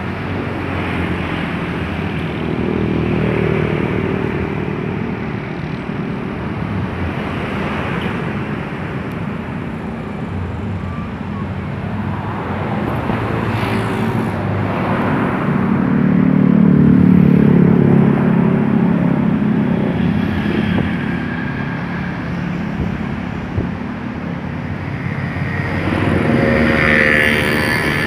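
City road traffic: vehicle engines and tyre noise running steadily, with one louder engine passing about halfway through and another near the end.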